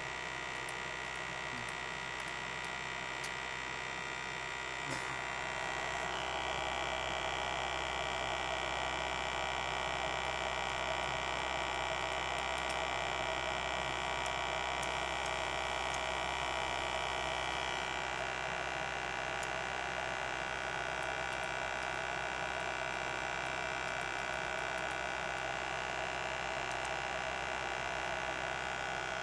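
Steady electrical hum from running equipment, with several steady high tones that shift in pitch about 6 seconds in and again about 18 seconds in. A few faint clicks come near the start.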